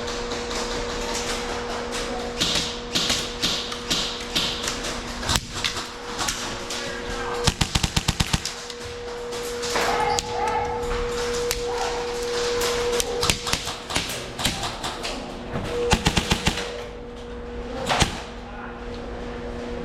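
Airsoft guns firing: scattered single shots, and two rapid strings of about ten shots each, one near the middle and one near the end, over a steady hum.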